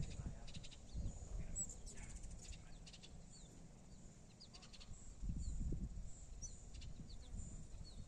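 Faint outdoor ambience: small birds chirping in short, high calls and quick twittering runs, over an uneven low rumble.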